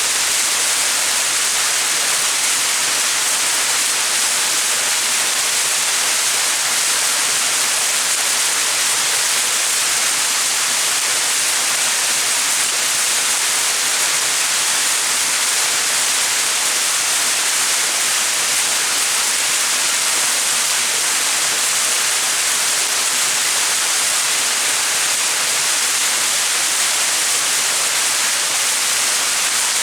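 Small mountain waterfall: water falling and splashing in a steady, even hiss.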